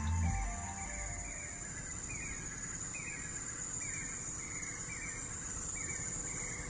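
Forest insects droning steadily on one high pitch, with a short chirping call repeated about every half second to second over it.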